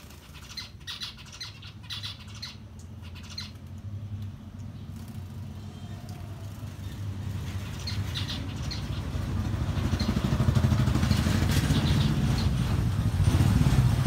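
Small caged finches chirping in short, high calls, mostly in the first few seconds. A vehicle engine's low rumble grows steadily louder from about halfway through.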